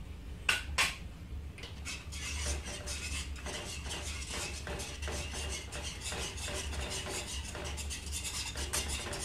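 Wire whisk beating a thick milk-and-mozzarella cheese sauce in a nonstick frying pan, its tines scraping and rattling rapidly against the pan. Two light knocks come about half a second in, and the fast whisking starts a little later.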